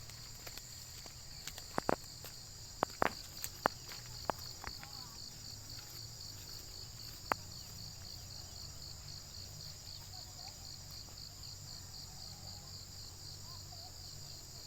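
Steady, evenly pulsing high trill of an insect chorus over a low steady hum. A handful of sharp clicks in the first five seconds and one more about seven seconds in.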